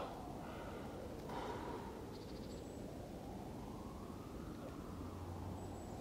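Faint distant siren wailing, its pitch slowly rising and falling, over a steady background hiss, with a brief soft sound about a second in.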